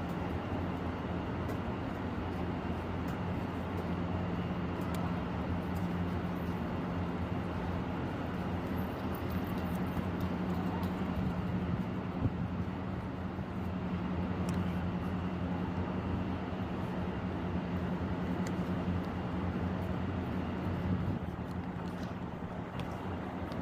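Steady low mechanical hum under a constant wash of noise, with a few faint clicks.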